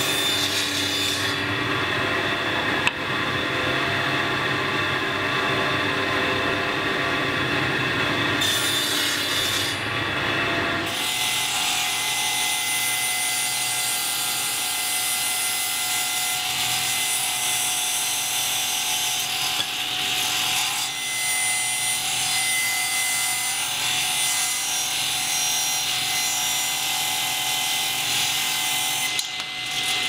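Stationary woodworking machines cutting wood. First a table saw runs as a strip of timber is ripped along its fence. About eleven seconds in, the sound changes to a different machine with a higher, hissier cutting sound as a clamped board is fed into it.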